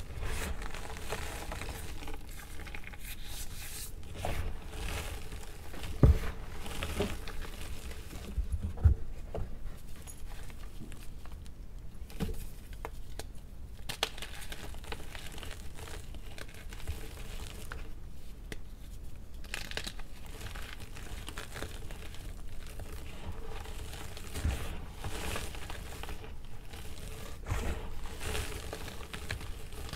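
Gym chalk blocks being crushed and crumbled by gloved hands in a tray of loose chalk powder: continuous dry crunching and crackling, with two louder thumps about six and nine seconds in.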